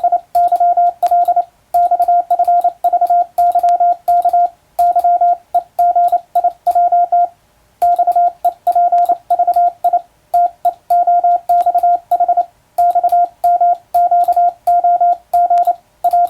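Morse code sent by hand on a telegraph key and heard as a sidetone: a single steady beep of about 700 Hz keyed on and off in dots and dashes at a brisk sending speed, with a faint click at each keying. The text sent is English-alphabet Morse from a telegram sending drill.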